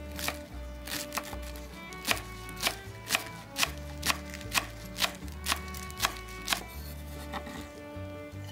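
Wide-bladed kitchen knife chopping culantro stalks on a wooden cutting board: sharp knocks, about two a second through the middle, with soft background music underneath.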